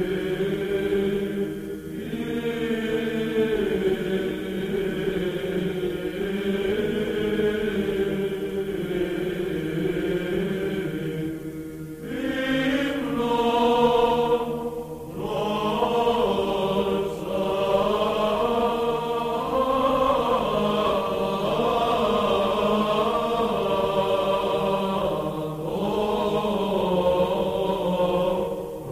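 Orthodox church chant sung by a choir: slow, sustained vocal lines over a steady held low note, with a higher melodic line coming in about twelve seconds in.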